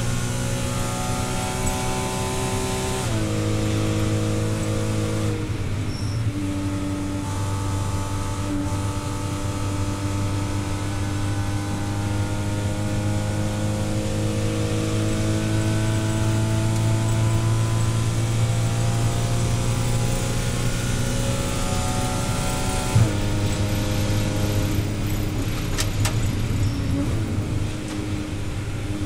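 Naturally aspirated flat-six of a Porsche Cayman 981 race car pulling hard at full throttle, heard from inside the cockpit. Its pitch climbs slowly with speed and drops sharply at two upshifts, about 3 seconds in and again near 23 seconds.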